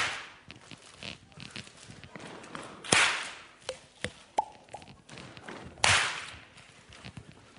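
A group doing body percussion in rhythm: soft pats and taps on bodies and on partners' backs, with a loud ensemble hand clap about every three seconds, at the start, about three seconds in and about six seconds in.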